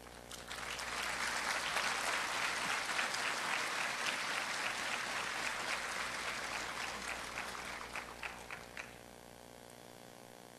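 Audience applauding. The applause starts about half a second in, holds steady, then thins to a few scattered claps and stops near the end.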